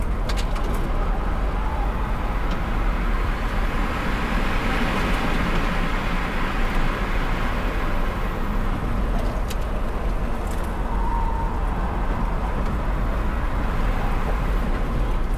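Onboard sound of an electric car driven flat out on a racetrack: steady wind and tyre roar over a deep rumble, with a few sharp ticks along the way.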